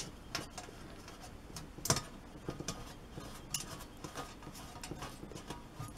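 Scattered faint clicks and ticks of a small nut being spun by hand onto a bolt through a shovel's metal blade and wooden handle, with a sharper click about two seconds in.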